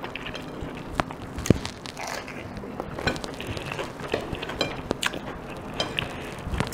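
Crisp lettuce leaf crackling as it is torn and folded by hand, with many small irregular clicks scattered throughout.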